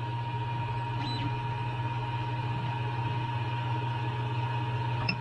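Creality Ender 3 3D printer sitting powered up, its fans and energised stepper motors giving a steady hum with a thin high whine. A light click near the end comes from the printer's control knob being pressed.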